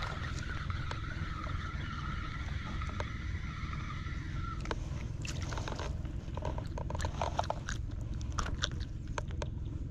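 Spinning reel cranked to retrieve line, its gears whirring steadily until about four and a half seconds in, when it stops; then irregular clicks and scrapes as a small largemouth bass is lifted from the water and handled. A steady low rumble runs underneath.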